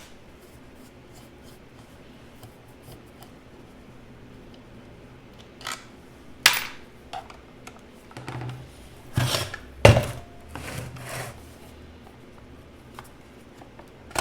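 Clicks, knocks and scraping as the handle and motor housing of a Porter Cable portable bandsaw are taken apart and handled: a sharp click about six seconds in, then a cluster of knocks and scrapes over the next five seconds.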